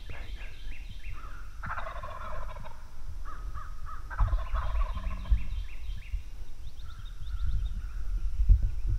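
Osceola wild turkey gobbling twice, about two seconds in and again about four seconds in, each a rattling call about a second long. Small birds chirp throughout, under a low rumble with a thump near the end.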